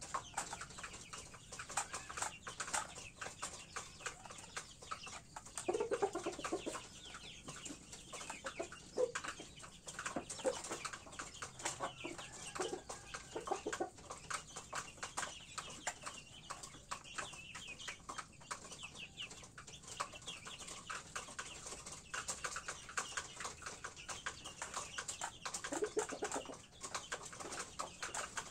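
Chickens pecking feed from a shallow metal tray, their beaks tapping rapidly on the metal, with a few low clucks now and then, the loudest about a fifth of the way in and near the end.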